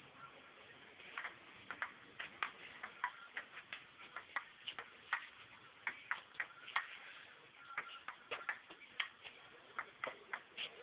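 Table tennis rally: the celluloid ball clicking off the paddles and bouncing on the table, a quick irregular run of sharp ticks, a few a second, starting about a second in.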